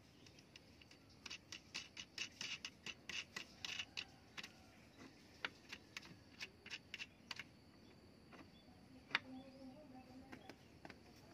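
Rapid small clicks and taps from a handmade wooden spear-gun grip and trigger part being handled and worked in the hands, with one sharper click about nine seconds in.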